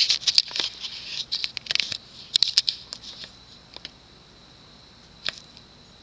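Close scratchy clicks and rustles of handling, bunched over about three seconds, then a single click about five seconds in. A faint steady high whine runs underneath.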